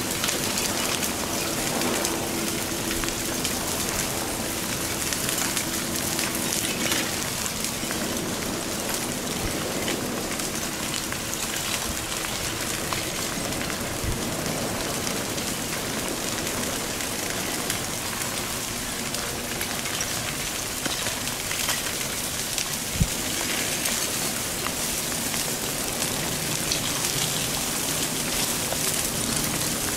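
Advancing Kīlauea ʻaʻā lava flow front crackling and clinking as its cooled, glassy crust breaks and the rubbly blocks tumble forward, giving a steady dense patter like rain. A couple of dull thumps stand out, the sharper one about three-quarters of the way through.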